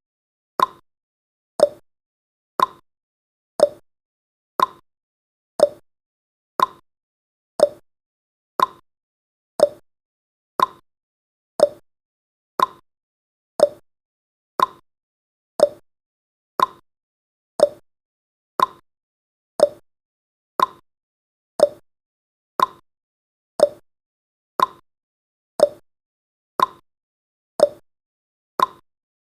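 Clock-tick sound effect of a countdown timer: a short, sharp tick about once a second, steady and even.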